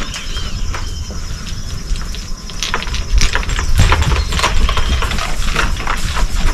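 A young horse moving around a lunging circle: irregular knocks and clicks of hooves and tack, over a steady low rumble.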